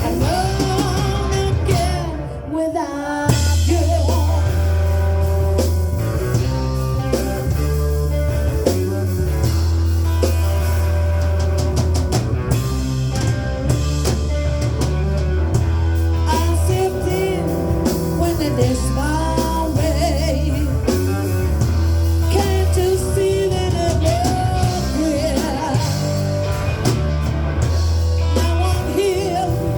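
Live rock band playing a cover song, with a singer over drum kit, electric guitar and a heavy bass line. The band thins out briefly about two seconds in, then comes back in full.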